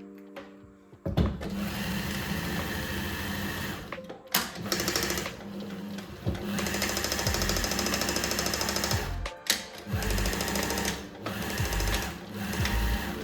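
Pfaff Tipmatic 6110 electric sewing machine running at speed, the needle mechanism chattering fast. It starts about a second in and stops and restarts several times in short runs.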